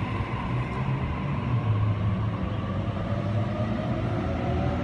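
Double-deck electric passenger train running slowly along the platform as it draws to a stop: a steady low rumble of wheels and traction gear with a faint gliding motor whine.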